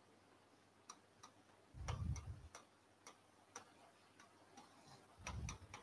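Faint, irregular ticks and taps of a stylus on an interactive display screen during handwriting, with a soft low thud about two seconds in and another near the end.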